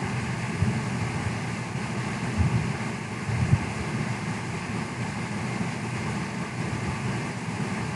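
Milling machine running steadily, with a low uneven rumble and a faint steady whine above it.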